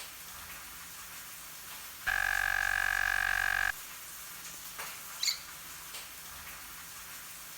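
Cockatiel making a strange drawn-out squeaky sound while yawning, one steady note lasting about a second and a half, starting about two seconds in. A couple of short faint chirps follow about five seconds in.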